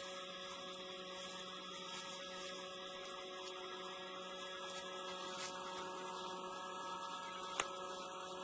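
A steady hum with hiss under it, made of several held tones, broken by a single sharp click near the end.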